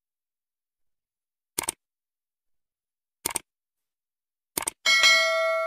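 Subscribe-button animation sound effect: three short double clicks about one and a half seconds apart, then a notification bell ding near the end that rings on in several steady tones and fades out.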